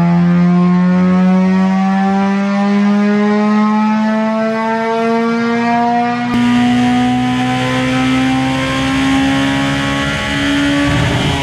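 Stock Honda K20A2 four-cylinder engine at full throttle on a chassis dyno, revs climbing steadily from about 5,000 to over 8,000 rpm with VTEC engaged, breathing through a 55 mm intake restrictor. It turns brighter and harsher about six seconds in, and near the end the throttle comes off and the pitch starts to drop.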